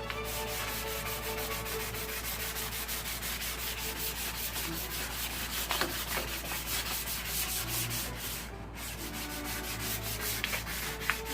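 Sandpaper rubbing a painted metal tank by hand in quick, even back-and-forth strokes, scuffing off the old paint before a repaint, with a brief pause about eight and a half seconds in.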